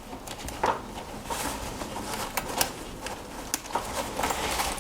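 Handling noise from a small fabric bag and its strap: rustling with scattered light clicks and taps.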